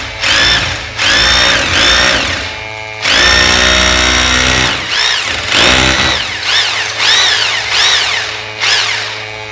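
Bosch GBH 2-18 RE rotary hammer drilling into a wall, run in a series of short trigger bursts. Its motor pitch rises and falls with each burst, and one longer run of nearly two seconds comes about three seconds in. Underneath, the Kärcher DDC50 drill dust collector's suction motor hums steadily.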